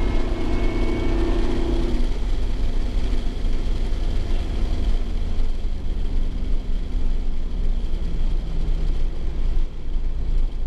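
Supercharged 5.4-litre V8 of a 2001 Ford SVT Lightning pickup running as the truck drives, heard from inside the cab, its engine note drifting lower in the second half.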